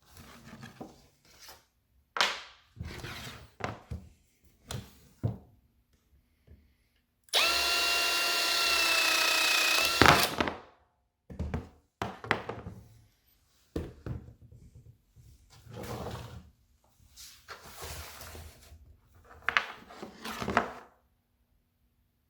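A cordless Milwaukee M18 power tool's motor runs with a steady whine for about three seconds, rising slightly and ending in a sharp click. Short handling clicks and knocks come before and after.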